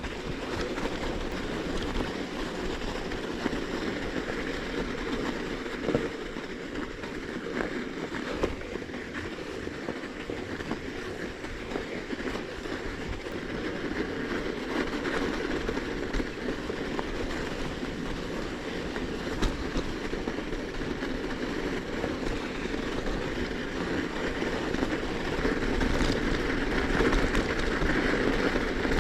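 A bicycle riding over frozen snow crust: steady tyre noise with scattered small knocks and rattles from the bike, growing a little louder near the end.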